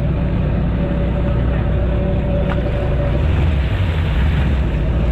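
Stand-up jet ski engine, a 2021 Yamaha SuperJet, running steadily at low speed close to the microphone, with a steady hum. A second stand-up ski runs close alongside.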